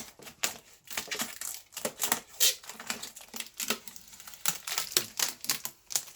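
Protective plastic film being peeled off the printer's panel: a rapid, irregular crackling with many sharp clicks.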